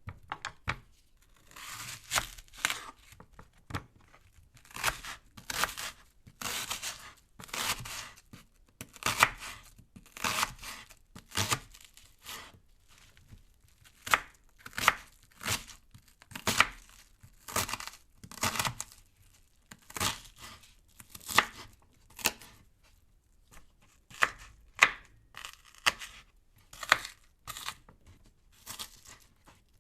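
A knife cutting through an onion: a long run of short, crisp slicing strokes, about one or two a second at an uneven pace.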